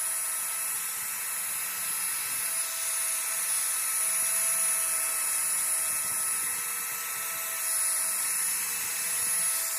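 Trim router in a mini router table running steadily at high speed: a constant high-pitched whine over a hiss.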